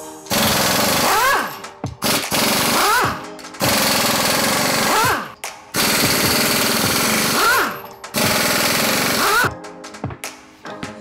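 Pneumatic impact wrench hammering five lug bolts loose from a front wheel, one burst of about a second and a half for each, its air motor's pitch rising and then falling within every burst. A few light knocks near the end as the wheel is pulled off the hub.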